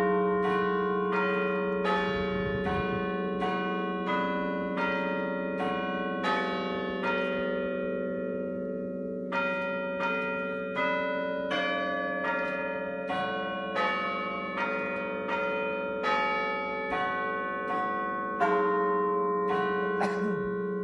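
Tower bells of a twelve-bell church ring, the bells struck one after another at different pitches, about one stroke every three-quarters of a second, each ringing on under the next. There is a short pause about eight seconds in before the sequence resumes.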